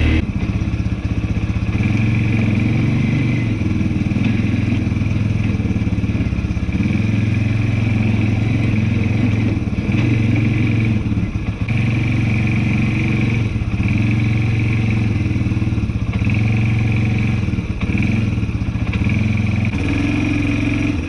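ATV engine running as the quad is ridden slowly along a rough dirt trail, the engine note rising and falling with the throttle every second or two.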